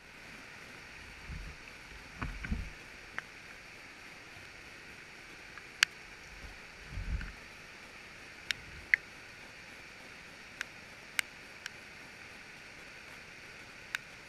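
Steady rushing of a flooded creek's fast, muddy water. Scattered sharp clicks run through it, about eight in all and louder than the water, with a few low dull bumps around one and a half, two and a half and seven seconds in.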